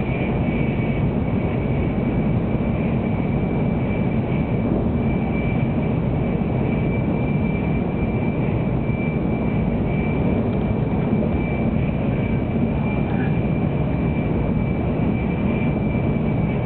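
Steady running noise inside a 700-series Tokaido Shinkansen car travelling at speed: a dense low rumble with a steady high-pitched whine running through it.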